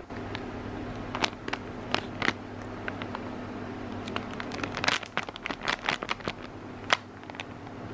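Plastic packet of crispy-fry batter flour crinkling and crackling in irregular clicks as it is cut open and tipped to pour flour into a ceramic bowl, busiest a few seconds in. A steady low hum runs underneath.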